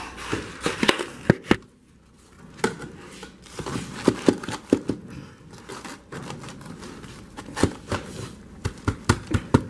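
Hollow clay ventilation blocks being set into fresh mortar and pressed together by hand: a run of irregular light knocks and clicks of block on block, with rustling of the plastic sheet beneath. There is a short lull about two seconds in.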